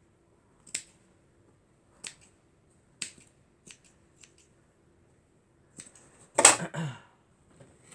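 A handful of sharp snips or clicks, spaced about a second apart, as the cover of a seat cushion is worked loose, then a louder, longer rustle near the end.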